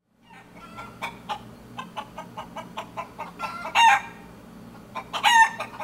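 A chicken clucking in a quick run of short clucks, with two louder, drawn-out squawks about four and five seconds in.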